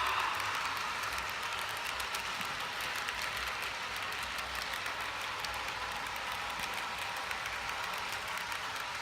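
Model train running along its track: a steady hiss with rapid fine clicking.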